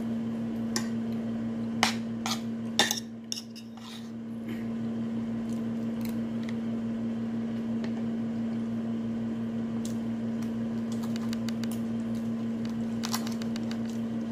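A metal fork and spoon clinking and scraping on a dinner plate. There are a few sharp clinks in the first few seconds and a quicker run of them near the end, over a steady low hum.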